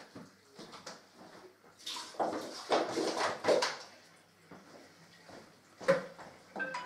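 Water splashing at a kitchen sink in several short bursts, then a single knock near the end as a plastic bottle is set down on a table.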